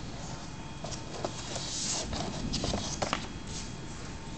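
Hands handling cardboard and paper packaging: a box flap being opened and a paper manual rustling, with scattered light knocks and clicks.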